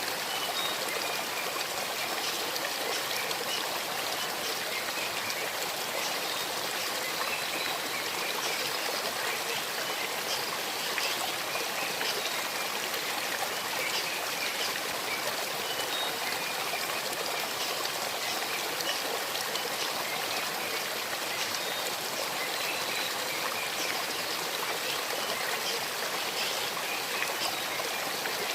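Shallow stream babbling and trickling steadily over river stones.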